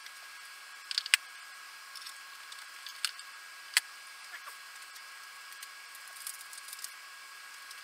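Scattered sharp clicks and light taps of handling at a workbench, loudest about a second in and again near four seconds, over a steady hiss with a faint high tone.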